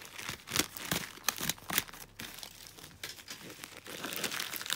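Plastic mailer bag crinkling and rustling under hands as a parcel is opened, with a run of sharp crackles in the first two seconds and softer rustling after.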